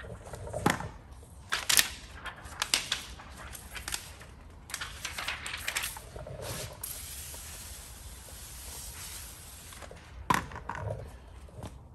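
Clear plastic paint protection film being handled: crinkling and rustling with sharp crackles, and a longer stretch of steady rustling hiss in the second half.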